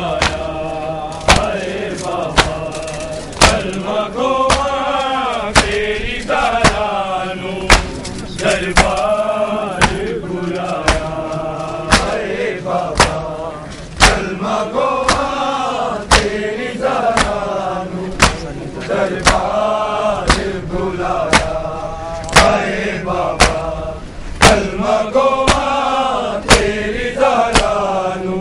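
Male voices chanting a noha, a Shia mourning lament, over sharp slaps of men beating their chests in matam, roughly once a second. The slaps are the loudest sounds.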